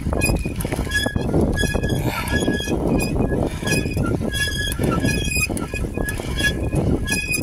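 Bicycle squeaking rhythmically as it is ridden, a short high squeak about twice a second in time with the turning wheels or pedals, over steady wind and rolling noise.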